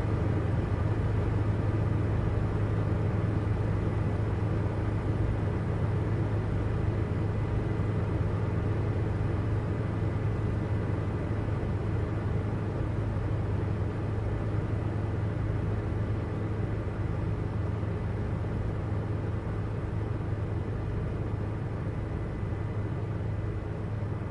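Steady low mechanical hum of a quadcopter drone's rotors, holding one even pitch with a faint thin high whine above it.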